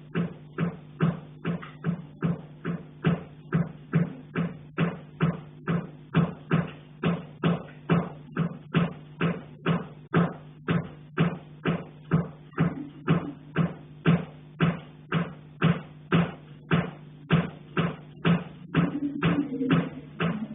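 A metal pipe being knocked on repeatedly, about two knocks a second in a steady, unbroken rhythm, each knock leaving a short low ringing note.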